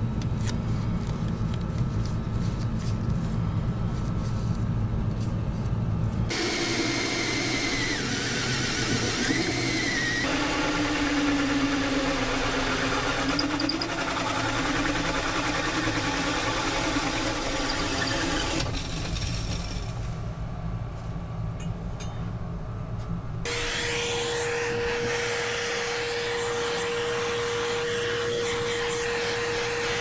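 Power tool cutting through a fiberglass-and-plywood boat dash in several takes, its motor pitch wavering under load. Then a shop vacuum runs with a steady hum for the last several seconds.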